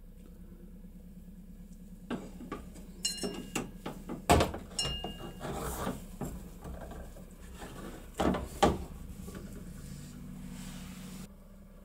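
Metal coat hooks clinking and knocking against one another and the plastic tub as they are handled in the water and wired together with copper wire for electrolysis rust removal. A run of sharp clinks from about two to nine seconds in, two of them with a brief metallic ring.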